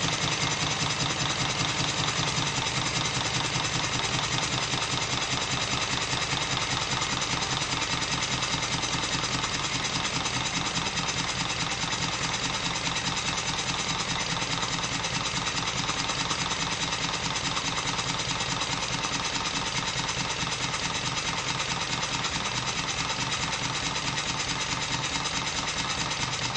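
Stuart triple expansion model steam engine running steadily on compressed air, with a rapid, even beat.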